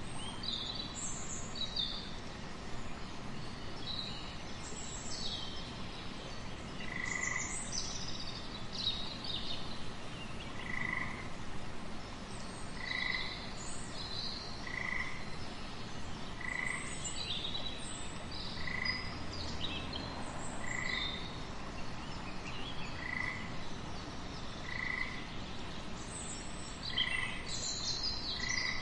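Frogs calling: from several seconds in, one frog repeats a short, mid-pitched call about every two seconds. Scattered higher chirps sound over a steady background hiss.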